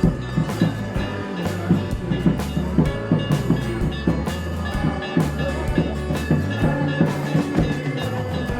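Music with a fast, steady drum beat, about three strokes a second, over ringing metallic tones and a low drone.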